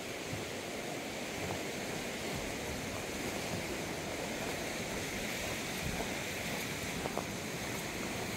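Steady, even rushing of a river and waterfall.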